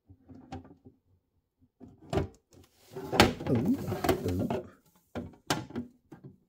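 Clear plastic front panel being worked into the front of a plastic display case: handling rustle, a stretch of plastic scraping in the middle, and several sharp plastic clicks and knocks as it is pushed into place.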